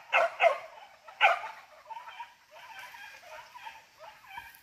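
Pig-hunting dogs barking: three loud, sharp barks in the first second and a half, then a run of quieter yelping barks.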